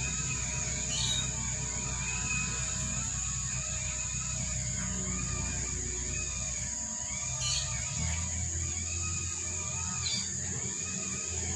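Soft background music of held notes over a low drone, the low notes changing about eight seconds in. A few short high chirps sound over it, about a second in, near seven and a half seconds and near ten seconds.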